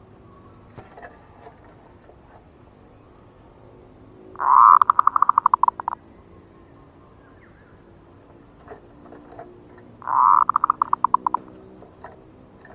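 Zebra dove (perkutut) lure song: two cooing phrases about six seconds apart, each a swelling opening note followed by a quick run of short, clipped notes.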